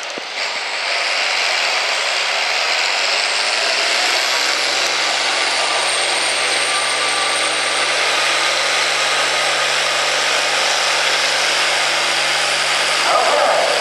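International Harvester farm tractor's turbocharged diesel engine running hard under full load while pulling a weight-transfer sled, a loud steady din. A high whistle rises about four seconds in, holds, and stops around eight seconds.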